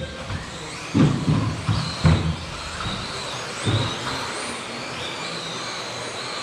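Electric 1/10-scale 2WD off-road RC buggies racing, their motors giving a thin wavering high whine. A few sudden low thumps come about a second, two seconds and near four seconds in.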